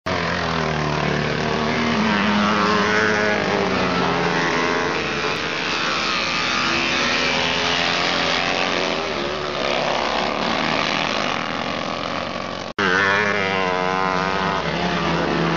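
Several vintage motocross sidecar outfits racing past on a dirt track, their engines revving hard with pitch rising and falling as they accelerate through the bend and away. The sound drops out for an instant near the end where the recording is cut.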